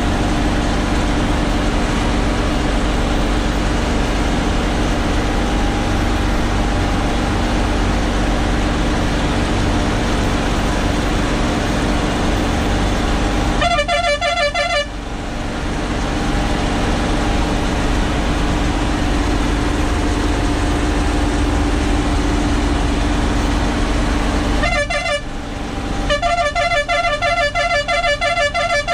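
Heavy truck's engine running steadily under load uphill, heard from inside the cab. A rapidly pulsing truck horn sounds for about a second partway through, briefly again later, then keeps pulsing near the end.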